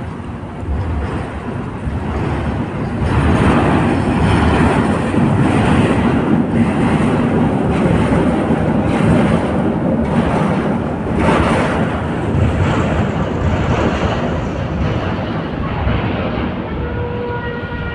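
Loud rushing vehicle noise with wind on the microphone, swelling about three seconds in. A siren begins to sound near the end.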